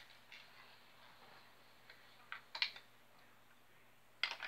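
A few short, light clicks and taps of toy lightsaber hilt parts being handled and fitted together: a pair about two and a half seconds in and another pair near the end, with quiet room tone between.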